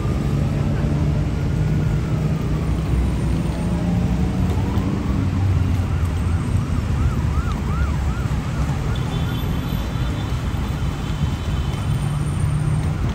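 Emergency vehicle siren over heavy road traffic: a slow falling and rising wail for the first few seconds, then a fast yelp of about three rising-and-falling cycles a second that fades out after about nine seconds.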